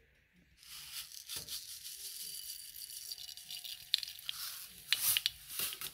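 Mustard seeds sizzling in hot oil, starting to pop with a few sharp crackles near the end: the oil is hot enough for the seeds to burst, the first stage of a tempering.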